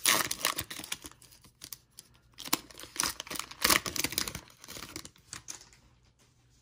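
Foil trading-card pack wrapper being torn open and crinkled by hand: a loud tear right at the start, more crinkling from about two and a half to four and a half seconds in, then dying away near the end.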